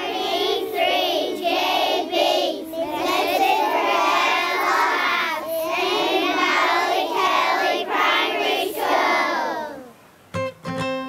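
A group of young schoolchildren singing a song together in unison. The singing stops near the end, and guitar music begins.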